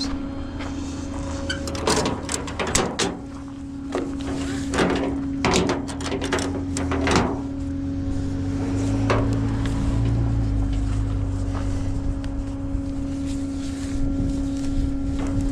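Tow-job work: a series of sharp metallic clanks and knocks over a steady hum, followed by a low rumble that swells and fades about ten seconds in.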